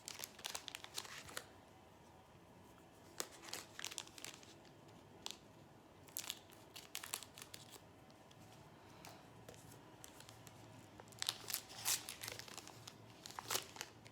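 Wrapper of a basketball trading-card pack being torn open and crinkled in the hands, in scattered bursts with short pauses between them.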